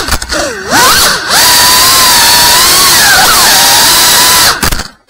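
FPV quadcopter's brushless motors and propellers whining, the pitch dipping and climbing with the throttle. The whine drops away just after the start, holds high and steady through the middle, and cuts off sharply near the end as the throttle is chopped.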